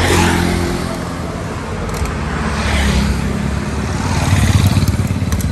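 Street traffic of motorcycle engines, a steady low running drone that swells as bikes pass, about three seconds in and again louder about four and a half seconds in. A few sharp clicks sound near the end.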